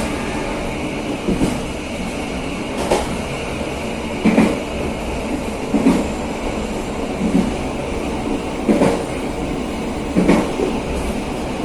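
KA Serayu passenger train running along the line: a steady rumble and hiss of wheels on rail, with a louder clack of the wheels over the rail joints about every second and a half.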